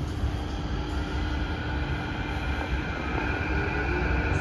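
Inside a Kawasaki–CRRC Sifang CT251 metro train as it starts pulling away from a station: a low rumble with several electric traction-motor whines that rise slowly in pitch as the train accelerates.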